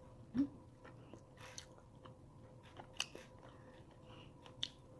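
A person chewing and eating with a metal fork, with a few light, sharp clicks of the fork against the food tray. A short low hum of voice comes about half a second in. A faint steady electrical hum runs underneath.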